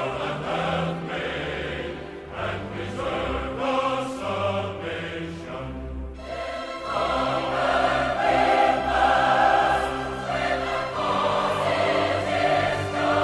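Choral music: a choir singing long held notes, swelling louder about seven seconds in.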